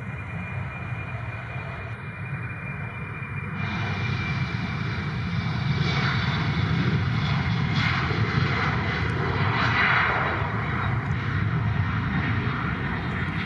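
Twin jet engines of a departing Embraer E195 airliner, a steady roar with a high whine that grows louder and peaks about ten seconds in, then cuts off abruptly near the end.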